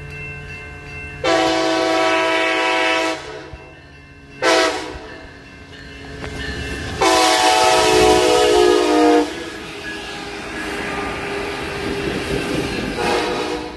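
Coaster commuter train's multi-tone air horn: a long blast, a short blast, then another long blast, followed by the rumble of the train passing over the tracks.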